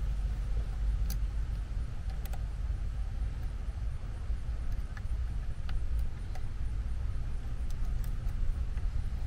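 Faint, scattered metallic clicks of a lock pick working the pin stack of a Kwikset doorknob lock that is held in a false set, over a steady low rumble.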